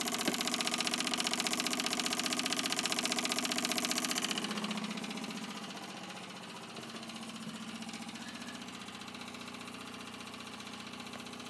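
Facet Posi-flo 60107 electric fuel pump running with a rapid, even ticking buzz, feeding a pressurised surge tank and drawing about 2 amps. It drops in level about five seconds in.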